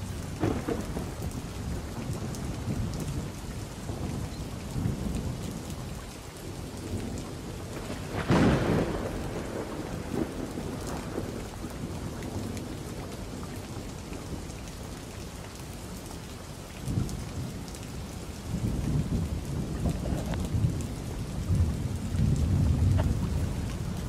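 Thunderstorm: steady rain with thunder. A sharp thunderclap about eight seconds in is the loudest sound, followed by deep rumbles building again in the last few seconds.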